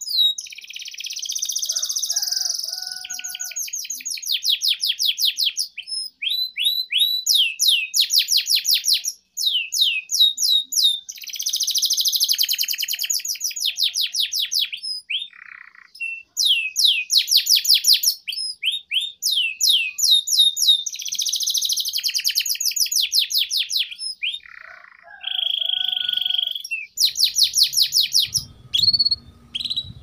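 Domestic canary singing a long, continuous song of fast trills and rolls, broken by slurred sweeping notes and a few brief pauses. A low rumble comes in near the end.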